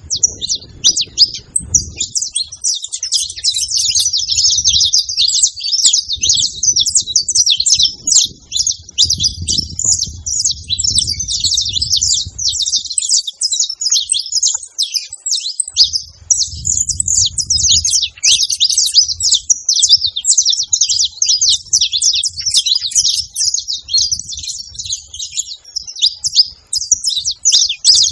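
Saffron finches singing in a dense, unbroken chorus of high chirps and trills.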